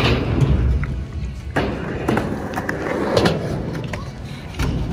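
Skateboard wheels rolling over concrete and ramp surfaces with a low rumble. A few sharp knocks of the board hitting the ground come about every second and a half.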